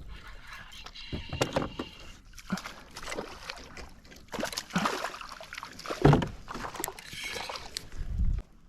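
Fishing gear being stowed aboard a small boat: irregular knocks, clatters and rattles, with water sloshing. The loudest knock comes about six seconds in.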